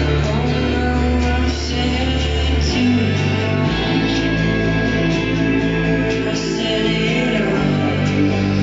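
A song with guitar, heavy bass and singing, played loud through a 15-inch party speaker system.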